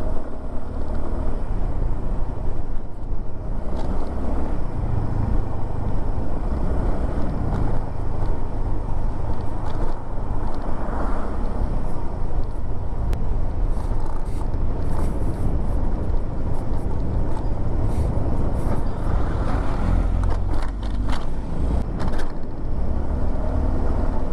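Steady rumble and road noise of a motor vehicle travelling along a road, with a few scattered clicks and rattles.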